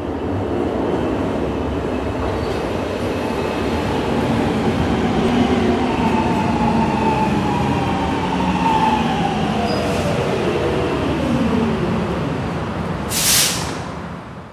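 Subway train pulling into a station: steady rumble, with a whine that falls in pitch as the train slows. A short, sharp hiss comes near the end, then the sound fades out.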